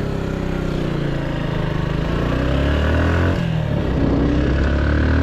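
Motorcycle engine pulling away and accelerating, its pitch rising, with a gear change about three and a half seconds in, after which it climbs again.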